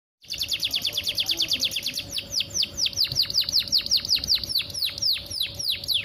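Domestic canary singing a long roll of quick down-sweeping whistled notes, about ten a second at first, slowing to about five a second after two seconds.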